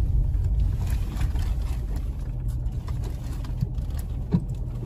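Car cabin noise while driving slowly over a rough dirt track: a steady low rumble from the engine and tyres, broken by a few short knocks as the car goes over the bumps. The sharpest knock comes near the end.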